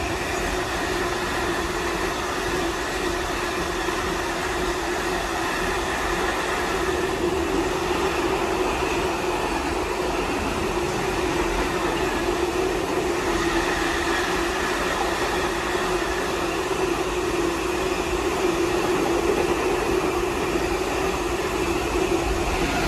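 Long freight train of yellow engineering hopper wagons passing close by at speed: a continuous rumble and rattle of wagon wheels on the rails, with a steady drone running through it.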